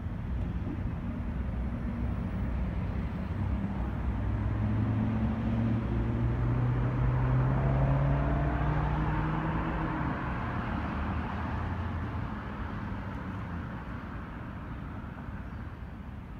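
A motor vehicle passing on the street: its engine note rises as it grows louder toward the middle, then fades away as it moves off.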